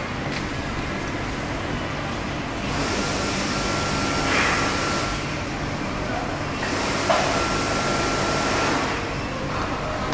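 Busy street-market background noise with traffic and indistinct voices, and two hissing passages of about two seconds each near the middle and toward the end.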